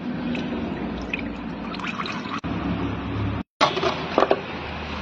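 Old fluid draining out of a car engine in a steady pouring trickle. It cuts off briefly about three and a half seconds in, then resumes with a few sharp knocks.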